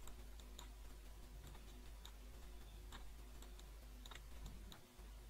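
Faint computer mouse clicks, several at irregular intervals, over a low steady hum.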